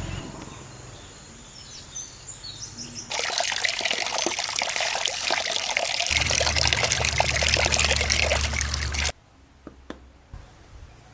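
Water pouring and splashing. It starts suddenly about three seconds in and cuts off abruptly about nine seconds in, with a few small clicks before it.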